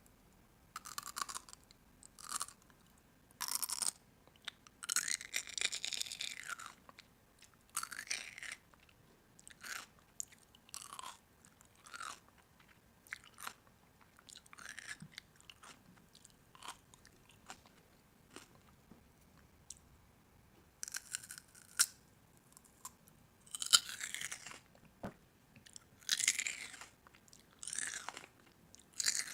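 Crunchy food being bitten and chewed, in irregular short crunching bursts about every second or two, louder near the end.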